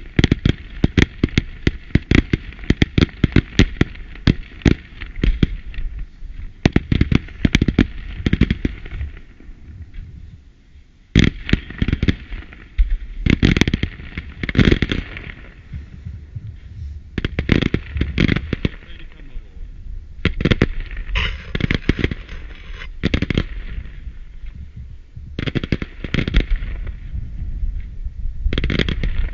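Fireworks display firing. A fast string of sharp bangs and crackling bursts runs for the first eight seconds or so, then a lull around ten seconds in. After that come further volleys of shots and bursts.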